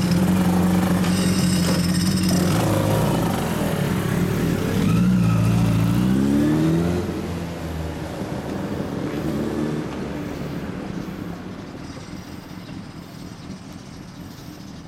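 Motorcycle engines running. A steady engine note for the first couple of seconds, then a bike accelerating with a rising rev about five seconds in, fading as the motorcycles ride away.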